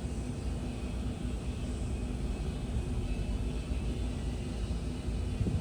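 SYIL V7 CNC vertical machining center's X axis traversing: the axis drive running as a steady, even rumble.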